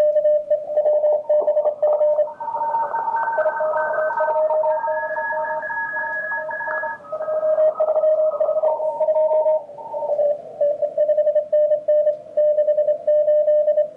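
Morse code signals from the receiver of an Elecraft K3 transceiver. One keyed tone is heard; then, as the receive filter is opened wide about half a second in, many overlapping Morse signals at different pitches crowd in. Around ten seconds in the filter narrows again and only the single keyed tone is left, showing how a narrow filter picks out one station.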